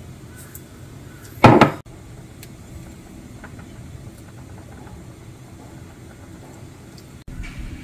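Kitchen handling while seasoning in a stainless steel bowl: one brief, loud clunk of a utensil or container about a second and a half in, then low, steady background noise.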